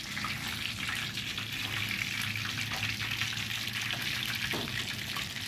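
Battered shrimp fritters frying in a wok of hot oil: a steady sizzle with fine crackling.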